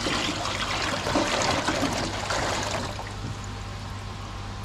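Water pouring and splashing as a koi shipping bag is emptied into a tank, heaviest for the first few seconds and then easing to a trickle.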